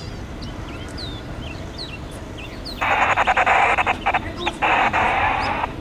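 Songbirds chirping over wind rumble on the microphone. About three seconds in, a loud, harsh buzzing sound comes in two bursts of roughly a second and a half each, with a short break between, and stops just before the end.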